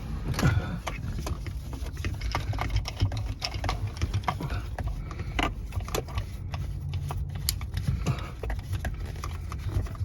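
Scattered plastic clicks and knocks from handling and adjusting a car phone holder and its spring-loaded clamp arms, over a steady low rumble.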